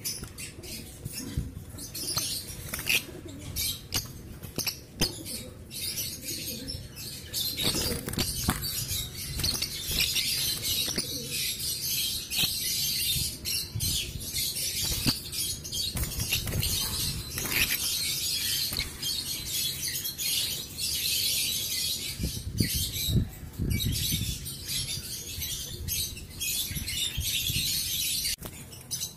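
Young peach-faced lovebirds chattering in a dense high-pitched stream of squeaks, with scratchy clicks and bursts of wing flapping.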